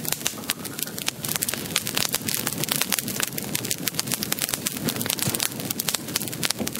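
Fire crackling: dense, irregular small crackles over a steady hiss.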